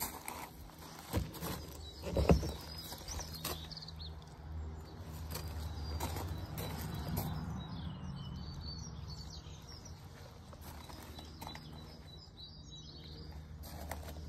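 Outdoor ambience: small birds chirping now and then over a steady low rumble. Two sharp knocks come in the first few seconds, the second the loudest sound.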